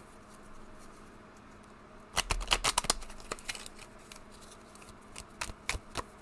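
A deck of cards being shuffled by hand: a quick run of crisp card slaps and riffles about two seconds in, then scattered softer flicks of cards.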